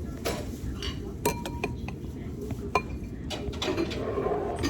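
Cutlery clinking against plates and bowls at the table: a few sharp clinks, one about a second in ringing briefly, over a steady low background noise.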